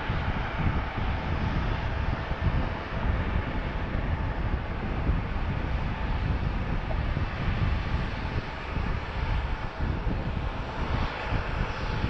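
Twin-engine jet airliner on its takeoff roll: a steady rumble of jet engine noise heard from across the airfield.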